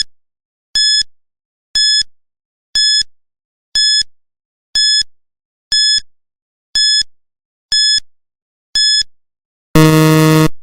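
Quiz countdown timer sound effect: short, high electronic beeps, one a second, then a longer, lower buzzer near the end as the time runs out.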